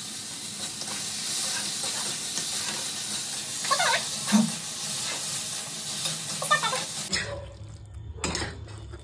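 Soya-chunk chili sizzling in a black wok while a spatula stirs and scrapes through it, with a few short scrapes against the pan. About seven seconds in the sizzle cuts off suddenly and a low hum remains, with one more scrape of the spatula.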